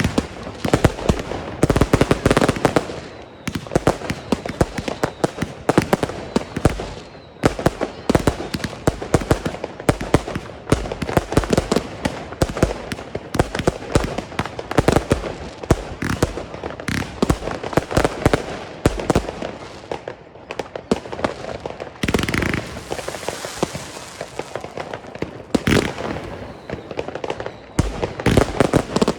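Consumer firework batteries firing: a dense run of shots and bangs in quick succession, with a hissing, crackling stretch about two thirds of the way in.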